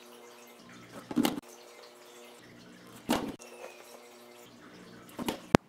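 Plastic hydroponic plant pods and sponges being handled and fitted into the garden's plastic deck: three short, soft knocks about two seconds apart, then a sharp click near the end.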